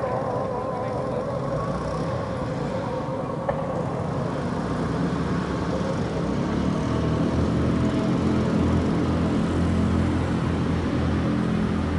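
Steady low motor hum over a background of noise, growing stronger about halfway through, with a single sharp click about three and a half seconds in.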